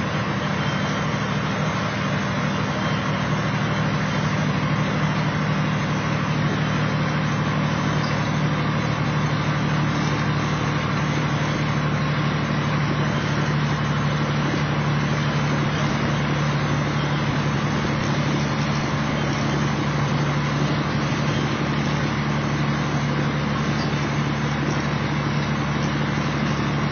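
Steady drone of a Kenworth T600A semi truck's Caterpillar diesel engine and road noise, heard inside the cab while cruising at highway speed.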